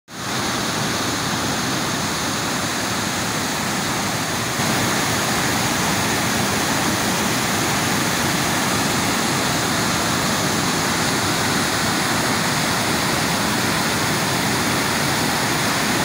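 Large waterfall with heavy white water: a steady, loud rush of falling water, a little louder after about four and a half seconds.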